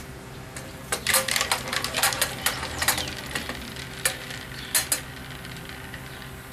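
Wooden spoon stirring noodles in a metal pot, clicking and knocking against the pot's sides in a quick, uneven run for about four seconds, with a few louder knocks near the end.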